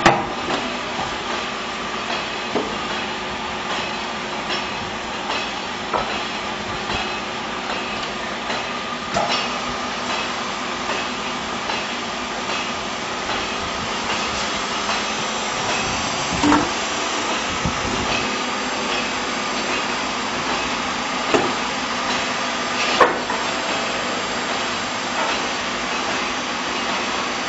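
6YY vertical hydraulic oil press running: a steady hum from its electric motor and hydraulic pump, with sharp metal knocks and clanks every few seconds. The two loudest knocks fall about two-thirds of the way through and near the end.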